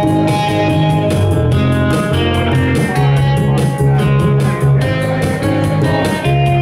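Live band music between sung lines: electric guitar playing over a steady drum-machine beat.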